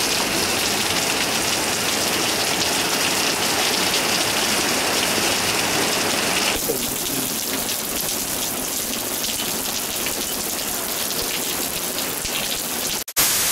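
Rain falling hard on pavement and puddles: a steady hiss of drops, a little duller after about six and a half seconds, with a brief break near the end.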